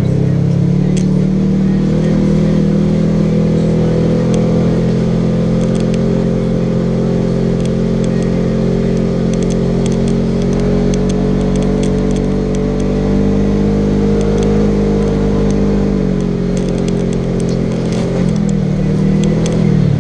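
Polaris RZR XP 1000's parallel-twin engine running steadily while the side-by-side drives along a dirt trail. The engine eases off about three-quarters of the way through and picks up again near the end, with scattered light clicks over the top.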